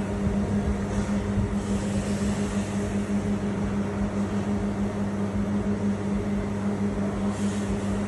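Steady industrial machine hum with a strong constant low tone and a continuous hiss, and a brief soft hiss near the end.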